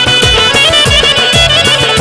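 Instrumental break in a Turkish folk song: a band plays an ornamented, wavering high melody line over a steady drum beat and keyboard accompaniment, with no singing.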